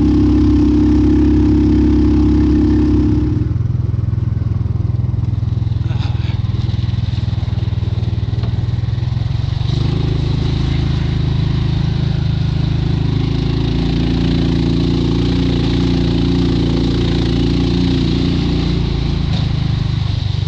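440cc DuroMax single-cylinder gas engine of a converted EZGO golf cart running under way. Its note drops lower and a little quieter about three and a half seconds in, then rises again about ten seconds in and holds steady.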